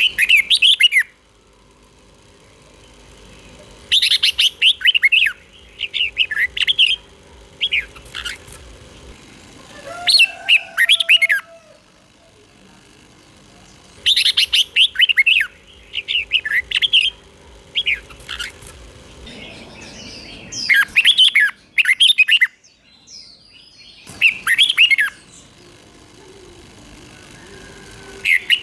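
Red-whiskered bulbul singing: loud phrases of quick, whistled notes, each about a second long and often in pairs, repeated every few seconds with pauses between.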